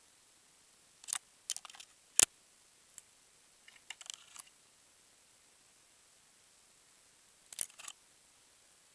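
Scattered sharp clicks, snaps and knocks of a climber's gloved hands and gear against dry acacia branches and twigs, heard close up, coming in short clusters; the loudest is a single sharp knock a little over two seconds in.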